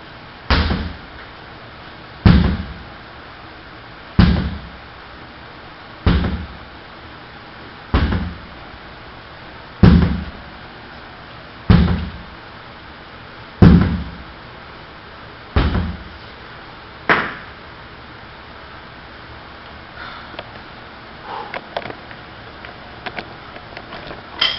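Sledgehammer strikes: ten heavy thuds about every two seconds, the last two a little closer together. After them come a few faint clicks and clatters.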